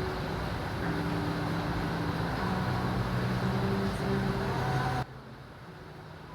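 Steady rushing noise under soft background music with held notes; the noise cuts off suddenly about five seconds in, leaving only the music.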